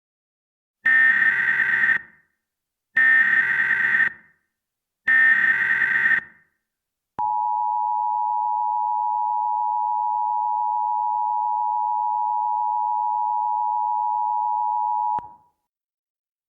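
Emergency Alert System tones. Three one-second bursts of SAME header data come first, each a rapid warbling buzz. About seven seconds in, the two-tone attention signal starts, a steady two-note drone that holds for about eight seconds and then cuts off.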